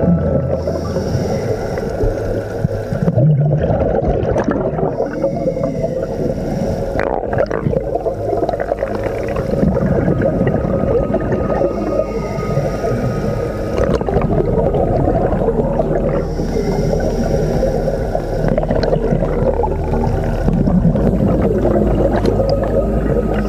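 Muffled underwater sound picked up through a dive camera's housing: a dense, steady gurgling rumble with a low hum beneath it.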